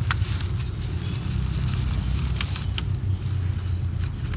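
Steady low rumble with a few sharp clicks and crinkles of a plastic bag and lidded plastic takeaway container being handled.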